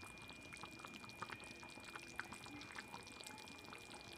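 Chicken curry simmering in a kadai: faint, scattered little pops of bubbles breaking in the thin gravy.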